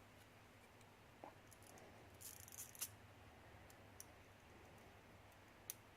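Faint, scattered small clicks and light rattles of a pin-tumbler lock's parts and tools being handled while the top pins and springs are worked out of its chambers, with a short cluster of clicks about two to three seconds in.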